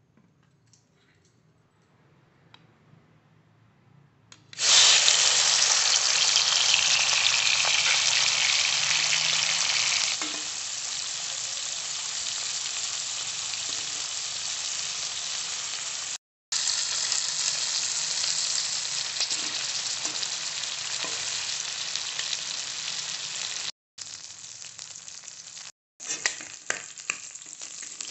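Prawns sizzling as they fry in hot mustard oil in a wok and are stirred with a spatula. The sizzle starts suddenly about four and a half seconds in and is loudest for the first few seconds, then settles lower. It breaks off briefly three times, and near the end spatula scrapes and clicks stand out.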